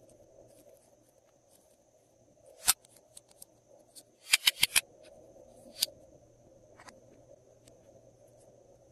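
Sharp plastic clicks and taps from handling small bottle-shaped plastic pens. There is one click about two and a half seconds in, then a quick run of four or five clicks around four and a half seconds in, then two more single clicks.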